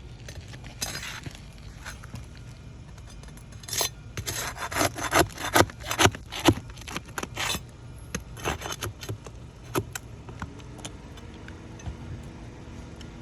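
Asphalt roof shingles being pried up and scraped loose, with a quick run of harsh scraping and tearing strokes in the middle, then scattered lighter scrapes and clicks. The shingles are delaminating as they are lifted.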